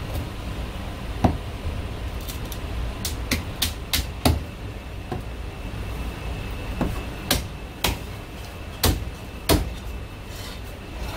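Chinese cleaver chopping marinated goose heads on a thick wooden chopping block: sharp, irregular chops, a few close together and others a second or more apart.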